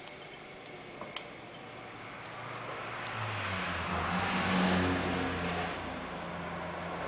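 A motor vehicle's engine, rising in level from about three seconds in and loudest around four to five seconds in, then easing off. A couple of light clicks about a second in.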